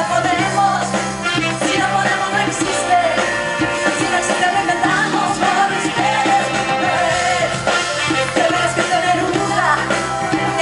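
Live pop-rock band playing, with bass guitar and a woman's lead vocal sung into a microphone, heard through a fan's recording in the audience.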